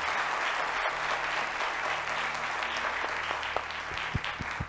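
Studio audience applauding, a dense even clapping that thins out near the end.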